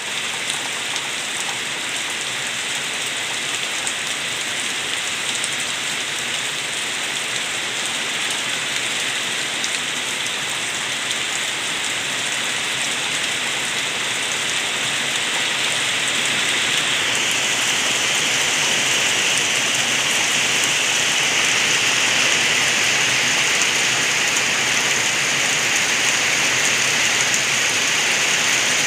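Rain falling with rainwater gurgling as it runs off: a steady hiss that grows a little louder about two-thirds of the way through.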